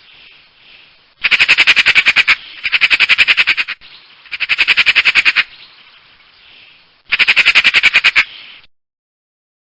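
Eurasian magpie chattering: four harsh, rapid rattles of about a second each, roughly ten clicks a second, with short gaps between them.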